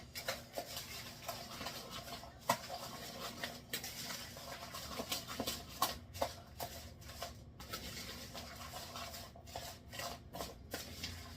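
Chopped green salad being stirred together with its dressing and toppings: irregular rustling and scraping, with a few sharp clicks.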